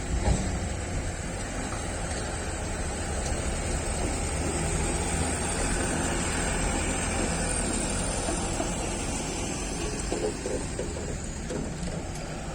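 Sany excavator's diesel engine running steadily under work, with a short thump right at the start.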